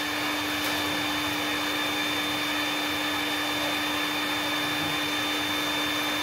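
Heat gun running, a steady fan whir with a constant low hum and a thin high whine.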